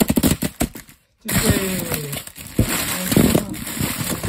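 Plastic candy wrappers crinkling and rustling as hands dig through a pile of fun-size candy bars and packets, with a short break about a second in.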